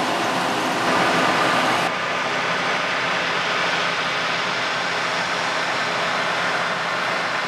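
John Deere 9540i combine harvester running steadily, an engine hum under a broad mechanical whir. The sound changes abruptly about two seconds in and turns duller, losing much of its high hiss.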